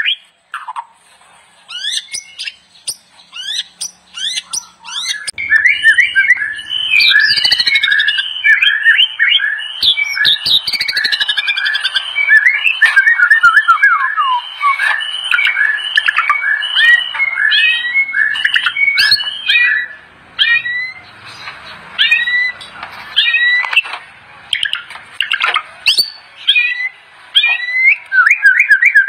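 White-rumped shama singing: a few scattered sweeping notes, then a long, fast, unbroken run of varied whistles and chatters, thinning out near the end into separate short phrases with pauses between them.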